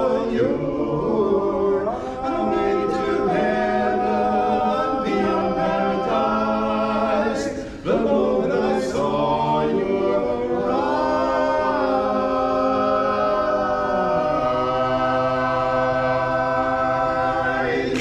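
Male barbershop quartet singing a cappella in close four-part harmony, closing the song on one long held chord over the last seven seconds or so.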